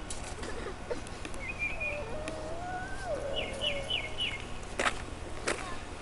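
Small birds chirping, with short high notes in quick runs of three or four. Two sharp clicks come near the end.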